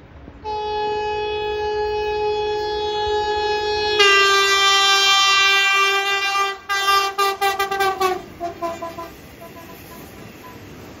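Alstom X'Trapolis electric train's horn sounding. It starts as one long steady note, swells into a louder two-note chord about four seconds in, then breaks into a rapid string of short toots that stop about two seconds before the end.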